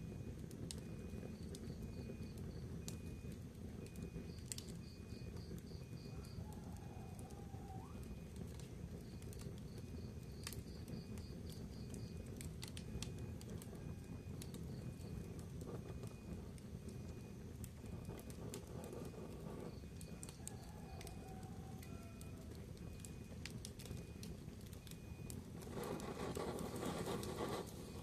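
Wood fire burning in a fireplace: a steady low rumble of flames with scattered crackles and pops, growing louder for the last couple of seconds.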